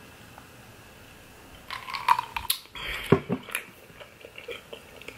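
Close-miked mouth sounds of drinking and eating: a cluster of wet clicks, smacks and swallows starting about two seconds in, the loudest a sharp knock about three seconds in.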